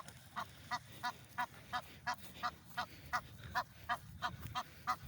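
Geese honking: a steady run of short, repeated honks, about three a second.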